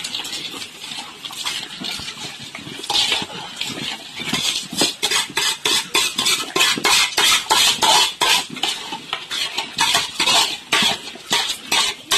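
Metal spoon scraping and clinking against a metal basin as fried coconut pieces and nuts are scraped out of it into a pot of payasam, in quick repeated strokes that grow thicker and louder from about four seconds in.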